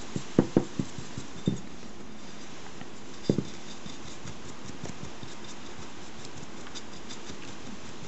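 Dry-brushing a small model building by hand: a few soft knocks and taps as the piece and brush are handled, clustered in the first second and a half and again around three seconds in, then faint scratchy ticks of the brush bristles flicking over the surface.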